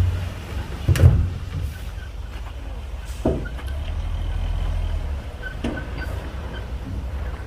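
Komatsu D58P bulldozer's diesel engine running with a steady low drone, with short knocks about a second in, a little after three seconds and near six seconds, the first the loudest.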